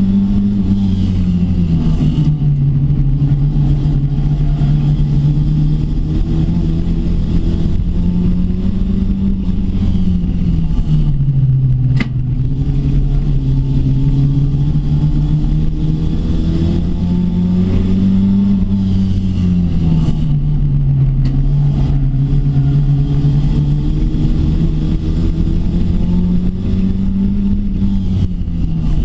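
Rookie Rod oval racing car's engine heard from inside the caged cockpit, its revs rising and falling in a repeating cycle about every eight to ten seconds as the car laps the oval. A single sharp click about twelve seconds in.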